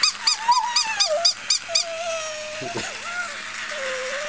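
Jack Russell terrier whining in a long, thin, wavering tone while stuck, alongside a quick run of about eight high, evenly spaced yips in the first two seconds.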